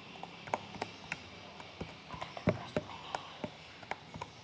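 Slime being squeezed and stretched by hand, making irregular wet clicks and small pops, several a second.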